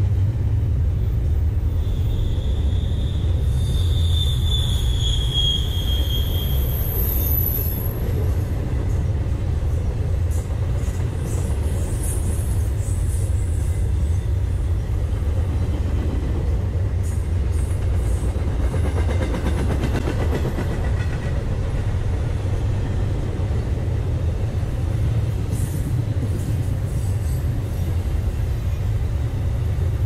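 Norfolk Southern intermodal freight train rolling past: a steady low rumble of cars and wheels on the rails, with a brief high squeal about three seconds in.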